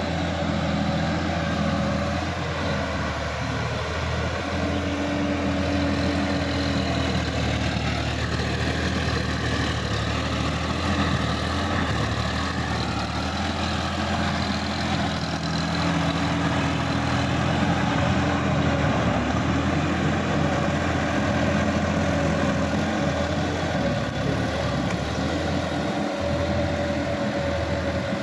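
Sonalika DI-50 RX tractor's diesel engine running steadily under load as it drags an implement through a flooded, muddy field. It grows a little louder as the tractor passes close about halfway through, then drops back as it moves away.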